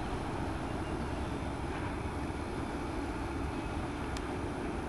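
Freight train of autorack cars rolling away along the track, a steady rumble with one faint click near the end.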